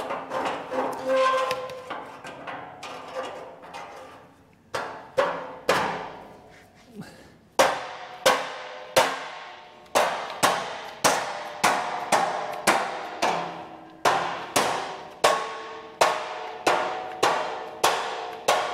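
Mallet blows on the steel front crossmember of a 1932 Ford frame as it is knocked into place between the rails. A few light knocks and some metal ringing come first, then from about five seconds in sharp, steady strikes follow, about two a second, each leaving the steel ringing briefly.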